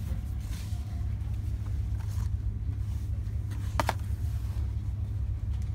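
Steady low background rumble, with one short sharp tap about four seconds in as a hand knocks against cardboard boxes of granola bars on a store shelf.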